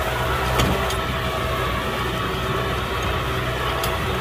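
Kubota M6040 SU tractor's diesel engine running steadily, a constant low hum with a few faint clicks over it.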